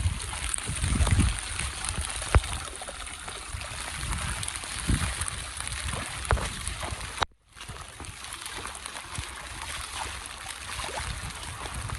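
Steady rush of rain-fed running water, with irregular low thumps beneath it. The sound cuts out for a moment about seven seconds in.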